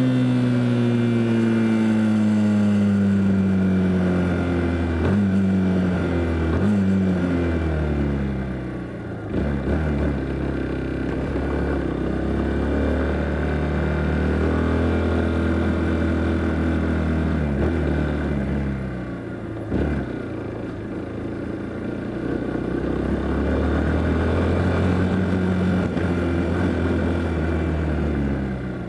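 Yamaha Fazer motorcycle engine running while riding. The engine note falls over the first few seconds, shifts abruptly several times as gears change, and holds steady through long stretches of cruising.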